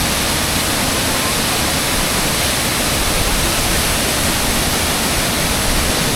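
Waterfall, heavy flow of water pouring down: a loud, steady rush.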